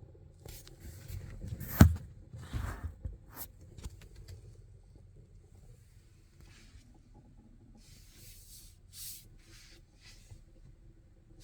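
Irregular hissing or rustling bursts from the dashboard of a 2023 Chrysler Pacifica Hybrid, some brief and some lasting about a second, over a low steady hum. A sharp click about two seconds in is the loudest sound. It is an unexplained noise that stops when the car is switched off.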